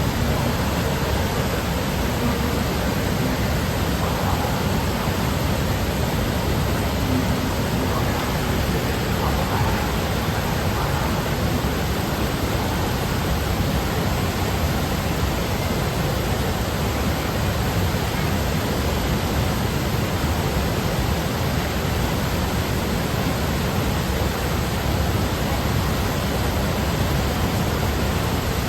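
Fukiware Falls waterfall rushing, a loud, steady wash of falling water with no breaks.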